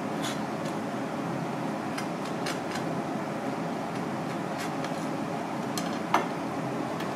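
Knife blade clicking on a cutting board while slicing raw red clam: a few light clicks, with one sharper knock a little after six seconds, over a steady background hum.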